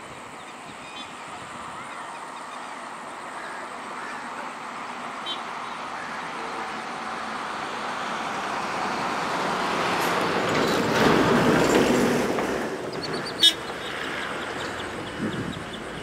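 A motor vehicle passing by: a broad noise swells slowly for about eleven seconds, then fades. A single sharp click comes a few seconds before the end.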